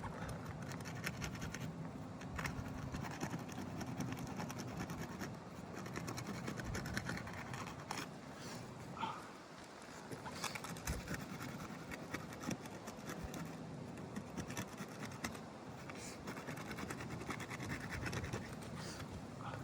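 Asphalt shingles being scraped and pried at during a roof repair attempt: a run of scratching and scraping with many small clicks and knocks, over a low steady hum.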